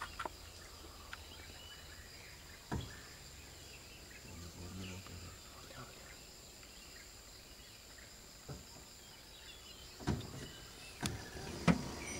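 Quiet background with a faint steady hiss, broken by scattered sharp clicks and snaps. They are sparse at first and come closer together and louder near the end.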